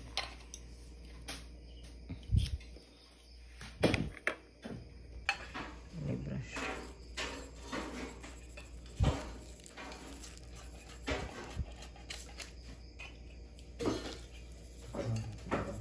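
Scattered light clinks and taps of a metal spoon and a plastic spoon against a plastic tub, its lid and the tabletop while sugar is spooned over a baked cake.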